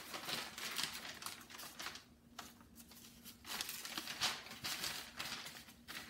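Large paper pattern sheets rustling and crinkling as they are unfolded and spread out, with a quieter pause in the middle.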